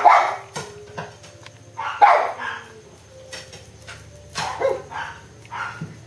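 A puppy giving short barks and yips in its sleep, about eight in all, with the loudest at the start and about two seconds in.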